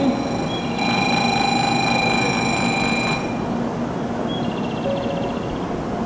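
Platform ambience beside a stopped Shinkansen train: a steady hum and hiss, with an electronic tone held for about two seconds starting about a second in, and a short pulsing beep near the end.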